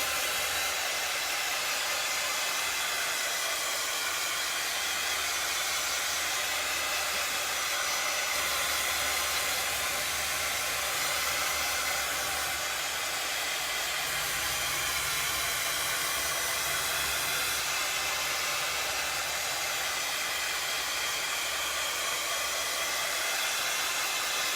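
Craft heat tool running steadily, blowing hot air to dry chalk paste on a stencilled surface: a constant, even rushing whoosh.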